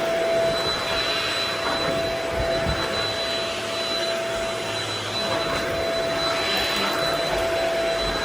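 Vacuum cleaner running steadily, a constant rushing motor noise with a steady whine on top.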